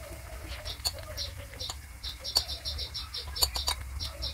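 Marinated chicken pieces frying in hot coconut oil in a pan, with sharp crackles and pops from the oil. A series of short high chirps runs alongside, quickest in the middle.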